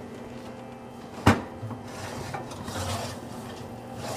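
An oven being opened and a skillet of cabbage rolls pulled out: one sharp knock about a second in, then scraping and rubbing of metal.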